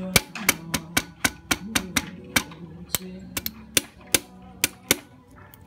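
Rubber mallet tapping an oiled gearshift spindle down through a Honda Wave S110's crankcase: quick, light, irregular taps, about three or four a second, thinning out toward the end as the spindle seats.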